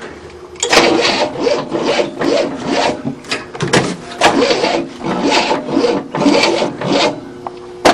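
Rhythmic scraping or rasping, about two strokes a second, ending with a single sharp click.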